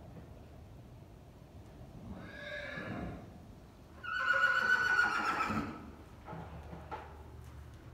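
A filly whinnying twice: a shorter, softer whinny about two seconds in, then a loud, longer one about four seconds in.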